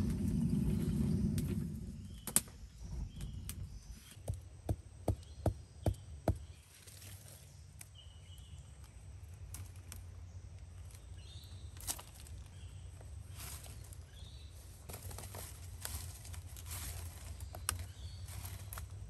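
Hand-turned pulley-driven fan blower whirring steadily, blowing air into a smoking clay furnace, then stopping about a second and a half in. After that comes a run of six evenly spaced sharp knocks, then faint rustling and occasional clicks from hands working green sticks and vines.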